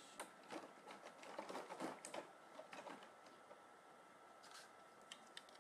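Faint rustling and light clicks of action-figure parts and their packaging being handled, mostly in the first two seconds, then a few small ticks near the end.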